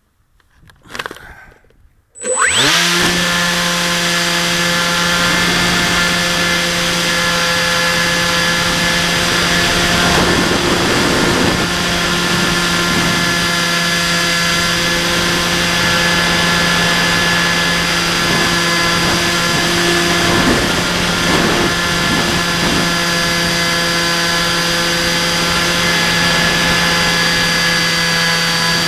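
Electric motor and propeller of a Bixler 2 RC plane spinning up quickly about two seconds in, then running steadily at high throttle: a constant whine over a rush of air, heard from the camera on board.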